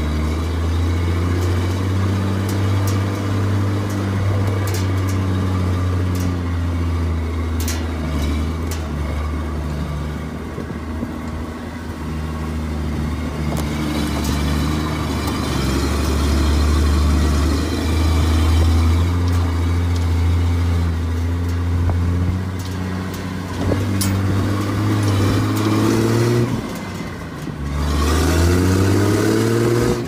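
A motor vehicle's engine running steadily under way, its low note drifting slowly. After a brief drop about 26 seconds in, it revs up with a rising pitch. A few sharp knocks come through now and then.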